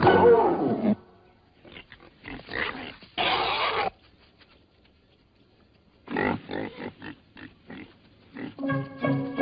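Warthog squealing in short bursts with quiet gaps between them: distress squeals while a lioness has hold of it. The first squeal falls in pitch.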